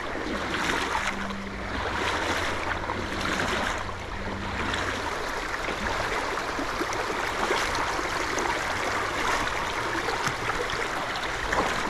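River water flowing, a steady stream sound.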